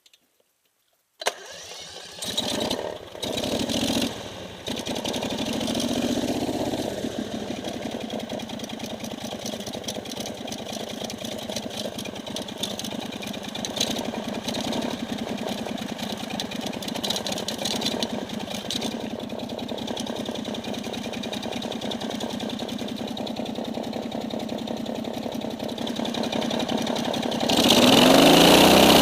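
An engine starts about a second in, with a few surges before it settles into a steady run, then gets noticeably louder near the end.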